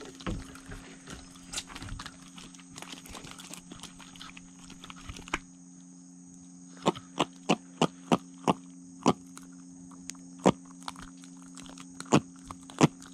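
A just-landed jack being handled in the hand. After a few seconds of rustling, about ten short, sharp, loud pops, several in quick succession about seven seconds in and a few more spaced out toward the end.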